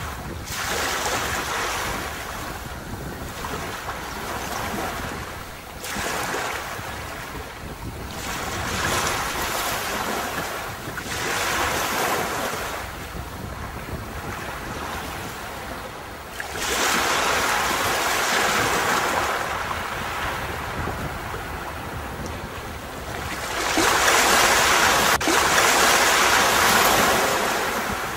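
Sea waves breaking and washing up on a beach, surging and ebbing every few seconds, the loudest surge near the end.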